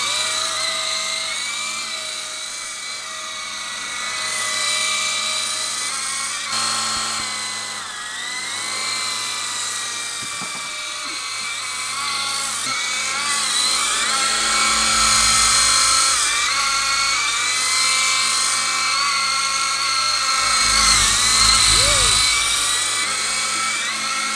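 Syma S37 Raptor remote-control helicopter's electric motor and rotors whining in flight, the pitch rising and falling as the throttle changes. A low rumble comes in twice, around the middle and again near the end.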